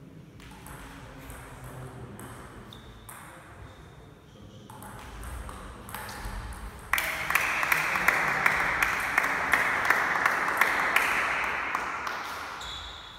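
Table tennis ball clicking off bats and the table in a rally. About halfway through, a loud rushing noise comes in sharply and fades away over about five seconds, with the clicks still audible on top of it.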